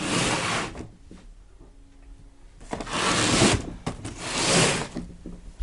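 Cardboard firework cake box being handled and slid over a table top: three rustling scrapes of about a second each, near the start, around three seconds in and about four and a half seconds in.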